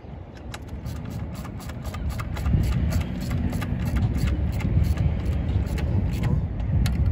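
Hand socket ratchet clicking in quick runs as it turns a bolt at the intake manifold of a 3.6 L V6 engine. A low rumble underneath grows louder about two and a half seconds in.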